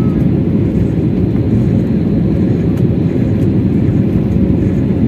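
Steady cabin noise inside an Airbus A320 descending to land: a low, even rumble of the engines and the air rushing past the fuselage, with a faint steady hum above it.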